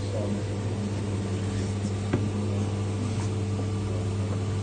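CNC milling machine running a cutting program on a gear knob: a steady low mechanical hum, with a single short click about two seconds in.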